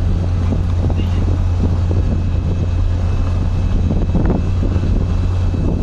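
A steady low drone, like a running motor, under rough rushing wind noise.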